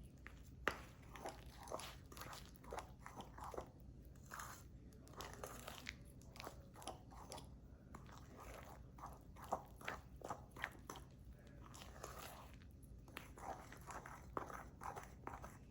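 A spoon stirring a thick mixture of condensed milk, milk powder and ghee in a bowl: faint, irregular scraping and sticky clicking strokes.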